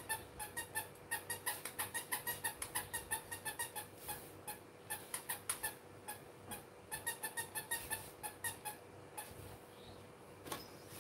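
Baby rattle toy being shaken: rapid, irregular jingling clicks, several a second, that thin out and stop about nine seconds in. A single sharper click comes near the end.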